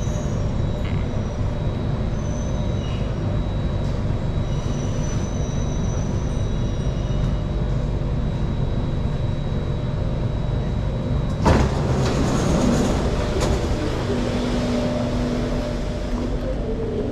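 Singapore MRT train running: a steady rumble of wheels on rail with a thin high whine. A single sharp knock comes about eleven seconds in, and a low steady hum joins near the end.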